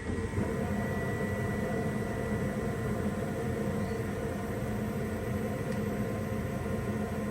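Gas furnace running: a steady air rush from the blower with a constant motor hum and a faint high whine, stepping up a little about half a second in.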